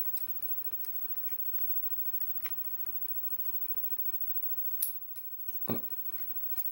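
Small metal clicks and taps from taking apart a Kwikset lock cylinder to get at its top pins and springs: scattered light ticks, then a few louder clacks about five seconds in.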